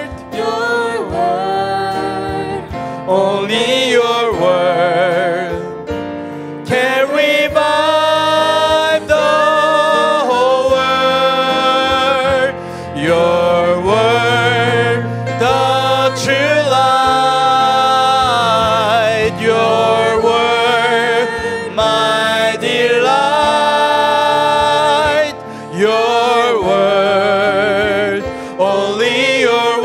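A man sings a slow worship song into a microphone, with vibrato on the held notes, over a steady instrumental backing.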